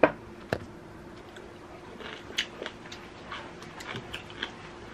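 Wooden spoon and chopsticks knocking against a dish of fried rice during a meal: a sharp click at the start, another about half a second later, then scattered light taps and clicks.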